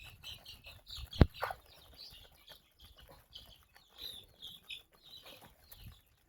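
A flock of chickens calling, with many short high-pitched peeps and chirps overlapping. A single sharp knock sounds about a second in, louder than the calls.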